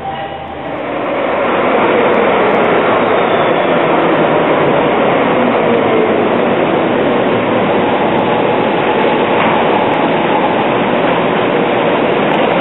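Bombardier Flexity low-floor tram pulling into an underground pre-metro station, a loud steady rumble echoing off the tunnel walls that comes in about a second or two in. A faint whine falls in pitch as it slows to a stop.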